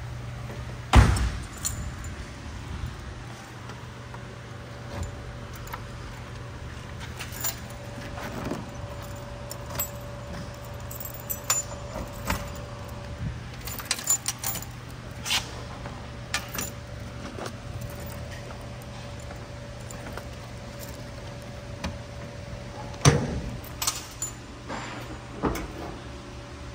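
Keys jangling, with clunks and clicks from the trunk of a 1964 Pontiac being unlocked and handled. There is a loud thump about a second in and another near the end, with scattered rattles between, over a steady low hum.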